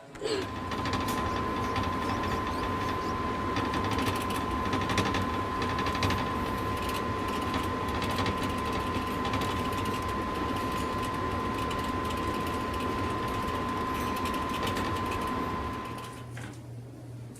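A small machine running steadily: a dense mechanical whirr and rattle with a constant high whine, dropping away near the end.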